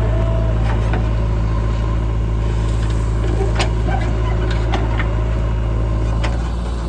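Heavy diesel engine running steadily with a low drone, with a few faint clicks over it.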